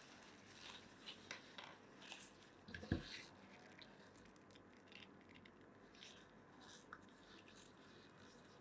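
Faint handling sounds of a rubber-gloved hand working a plastic syringe of diamond polishing paste, squeezing paste onto a brass cup: soft rustles and small clicks, with one dull knock about three seconds in.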